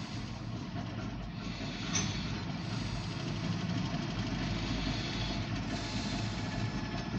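Diesel switcher locomotive idling with a steady low rumble while standing with its grain hopper train, heard through the windshield of a parked car. A faint click comes about two seconds in.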